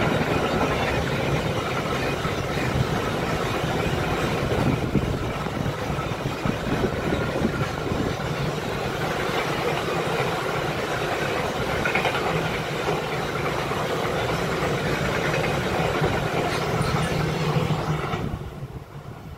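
Freight train of car-carrier wagons rolling past close by: a steady rumble and rattle of wheels on the rails, falling away sharply near the end as the last wagon passes.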